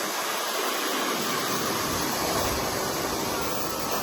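Chignon leafless (bladeless) hair dryer running, a steady rush of blown air.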